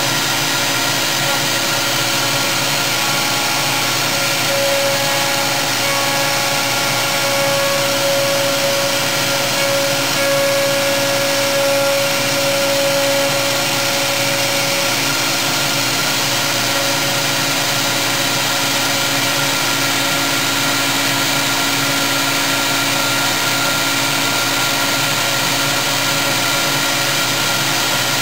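CNC router spindle running with its end mill cutting into a block, a steady machine whine over the noise of the cut. One tone in the whine grows stronger for about ten seconds in the first half.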